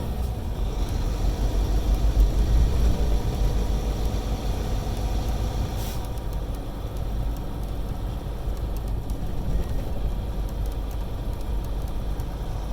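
Semi truck's diesel engine and road noise heard from inside the cab at low speed: a steady low rumble, with one brief click about six seconds in.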